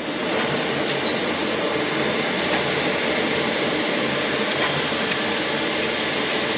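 DoAll G10 8×24 surface grinder running, giving a steady, even rushing noise with a faint hum.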